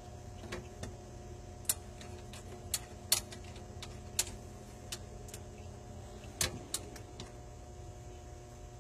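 Scattered sharp metallic clicks and taps, about half a dozen at uneven intervals, from the garbage disposal's sink mounting assembly being handled and fitted under a stainless steel sink, over a steady background hum.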